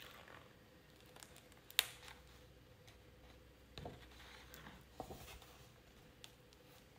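Paper pages being leafed through by hand: faint rustling and sliding of paper, with a sharp tap about two seconds in and page swishes at about four and five seconds in.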